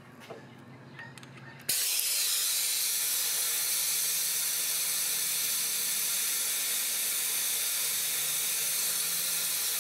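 Compressed air rushing through the venturi valve of a coolant vacuum refill kit: a loud, steady hiss that starts abruptly about two seconds in, drawing a vacuum on the motorcycle's cooling system through the fill neck. Before it, a few light handling clicks.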